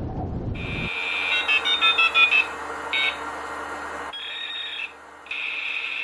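Electronic beeping: a steady high-pitched tone, with a quick run of short beeps about a second and a half in and one more beep near three seconds. The tone breaks off briefly near the end. A low wind noise stops just under a second in.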